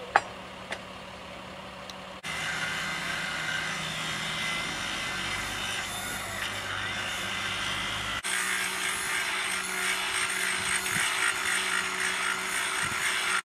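A couple of sharp sledgehammer knocks on the freshly poured thermite rail weld, then a portable rail grinder grinding the weld down flush with the railhead: a loud, steady, harsh grinding that breaks off briefly a little past halfway and starts again.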